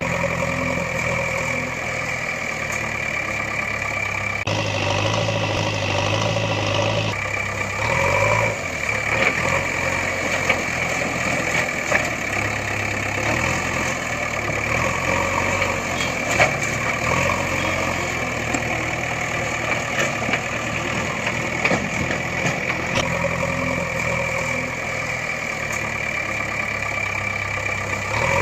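A machine running steadily, engine-like, with a constant high whine over a low chugging. The sound changes for a couple of seconds about five seconds in, and sharp clicks come now and then.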